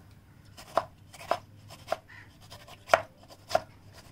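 Kitchen knife chopping tomatoes on a wooden cutting board: a handful of sharp, unevenly spaced taps as the blade cuts through and strikes the board.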